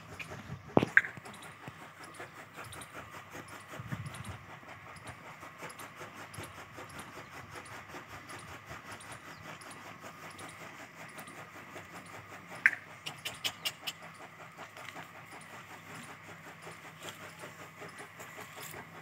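A camel chewing green fodder over a faint steady hum, with two sharp clicks about a second in and a short run of clicks about two-thirds of the way through.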